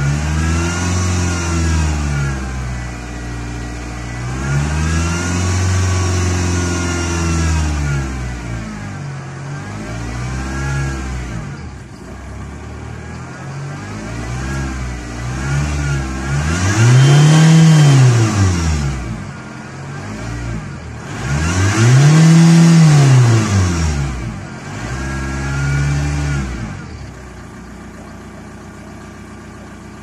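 Volkswagen turbocharged engine revved repeatedly while stationary: about seven blips rise and fall in pitch, the two highest about two-thirds of the way through, before it drops back to a steady idle near the end. A high hissing whistle rises with each rev, the turbocharger noise that the owner presents as a bad turbo.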